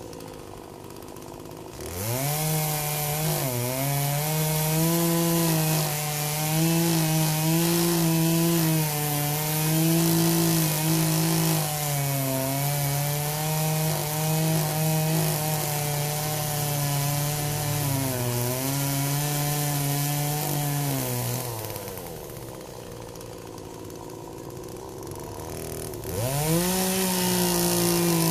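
Poulan 18-inch two-stroke gas chainsaw revving up and cutting into a tree stump. The engine pitch dips and recovers again and again as the chain bites into the wood. It falls back to idle about 21 seconds in, then revs up again near the end.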